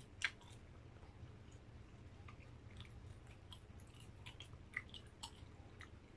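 Close-up mouth sounds of a person eating grilled skewered barbecue: soft chewing with sharp wet clicks and lip smacks. The loudest click comes about a quarter of a second in, with a few more near the end, over a low steady hum.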